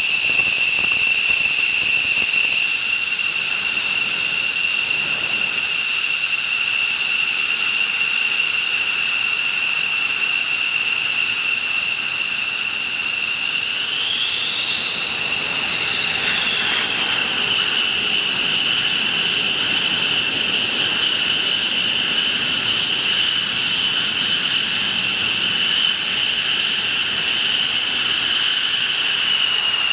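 Jet engine running with a steady high-pitched whine of several tones over a hiss. About halfway through, the whine briefly rises in pitch and falls back.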